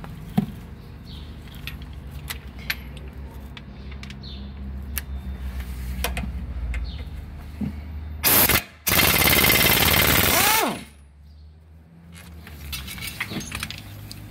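Pneumatic impact wrench with a 17 mm socket hammering at a front-wheel bolt: a short burst, then a longer burst of about two seconds, ending as the air motor winds down in pitch. Before it come light clicks and clinks of the tool being handled over a low steady hum.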